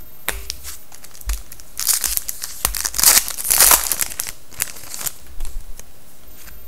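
Foil wrapper of a 2011-12 Panini Contenders hockey card pack being torn open and crinkled, loudest in the middle, with a few light clicks of handling before and after.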